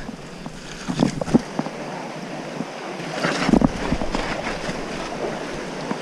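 Steady rush of flowing river water, with a few short knocks.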